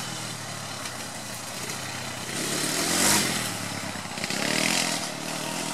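Quad bike's engine running off among the trees, revving so that its pitch rises and falls, loudest about three seconds in and swelling again near the end.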